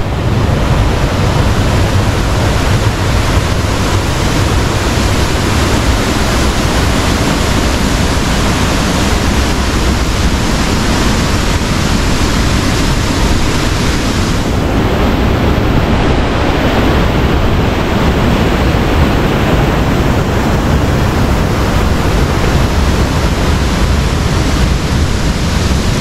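Fast-flowing stream rushing and cascading down a stone channel: a loud, steady wash of water noise.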